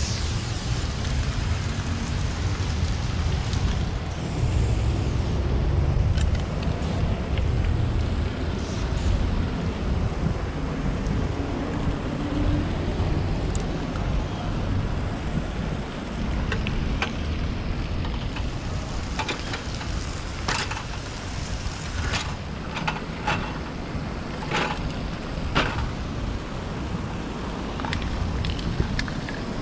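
Steady low rumble of outdoor street noise. Through the second half come scattered short, sharp clicks and ticks.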